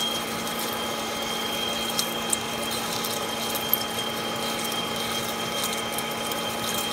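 Lathe turning at about 450 RPM as a 1-3/4-inch Kyocera indexable drill with through-drill coolant cuts through 6061 aluminum: a steady hum with a high whine over a hiss, and a few sharp ticks.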